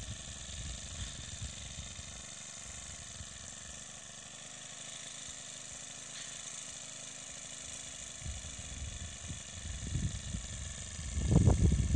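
Small air-cooled engine of a self-propelled plastic-mulch layer running steadily at idle, turning into louder, irregular low rumbling in the last second.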